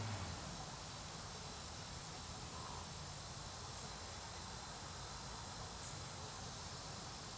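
Faint steady outdoor background hiss, with a few brief high chirps scattered through it; a low hum dies away just after the start.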